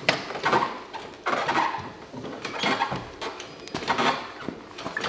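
Metal clanking and rattling in about four bursts a little over a second apart, as a 3.5-litre straight-six engine is hoisted out of its engine bay on an engine crane.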